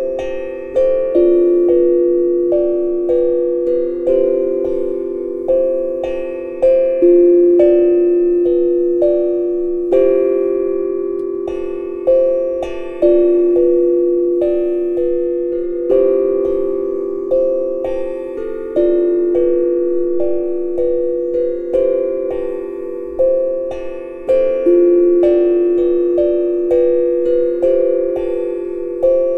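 Tongue drum played with ball-tipped mallets: single pitched notes struck about once a second in a slow, wandering melody, each note ringing on and overlapping the next.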